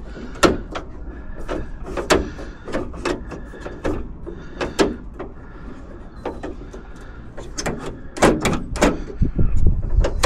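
Irregular metallic clicks and clunks of a Jeep Wrangler YJ's door latch and lock mechanism being worked by hand, growing busier and louder near the end. The lock action is stiff, which the owner puts down to the mechanism needing lubricant.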